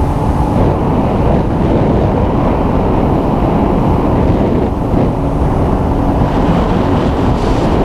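A small vehicle's engine running under way, with heavy wind on the microphone. Its steady tone fades in and out.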